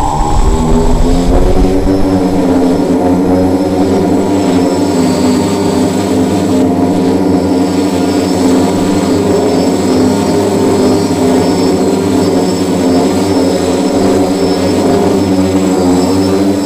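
Quadcopter's electric motors and propellers running, rising in pitch at the start as it lifts off, then a steady multi-tone hum that wavers slightly as it hovers.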